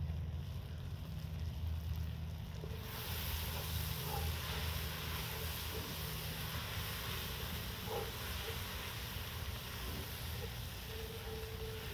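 Broth hitting the hot cast-iron Dutch oven over an open fire: a sudden steady sizzling hiss starts about three seconds in and carries on as the pot steams. Under it runs a steady low rumble of wind on the microphone.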